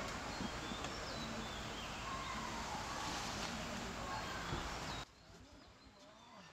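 Birds chirping over a steady hiss of outdoor background noise. The hiss cuts off abruptly about five seconds in, leaving only faint bird calls.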